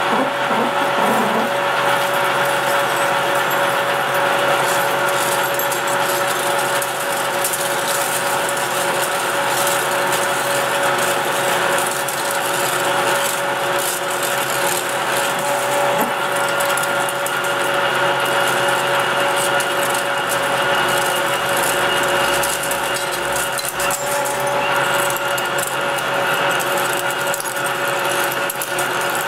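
Metal lathe running while a large twist drill bores into a spinning aluminum workpiece, the cut throwing off curling chips. A steady machining noise with a constant tone, and a faint high whine joining in during the second half.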